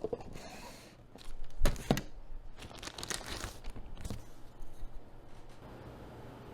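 Keyboard parts and their packaging being handled: a few knocks and thuds, the loudest a pair about two seconds in, with stretches of rustling between them.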